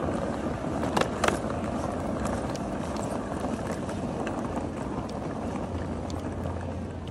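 Hard-shell carry-on suitcase's wheels rolling over a tiled floor, a steady rumble with a couple of sharp clicks about a second in.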